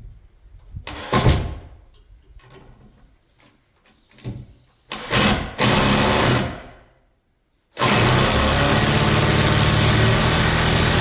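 Power drill driving a screw to fix a wooden rafter: a short run of the motor about five seconds in, then a steady run of about three seconds near the end as the screw goes home.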